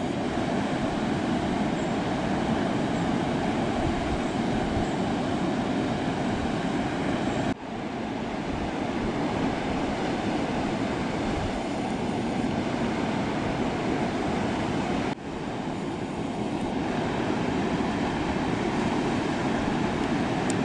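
Steady noise of ocean surf breaking and washing. It cuts out abruptly twice, about seven and fifteen seconds in, and comes straight back each time.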